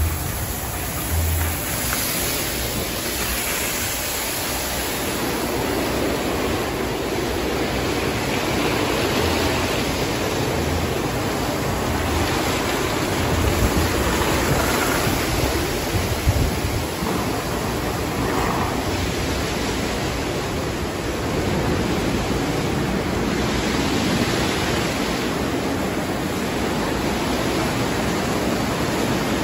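Tunnel car wash running: a steady rush of water spray mixed with the whirring and scrubbing of large spinning wash brushes, with occasional low thuds.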